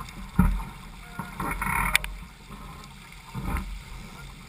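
Water washing and slapping along the hull of a Laser 4000 sailing dinghy under way, with a few short thumps and a sharp click about two seconds in.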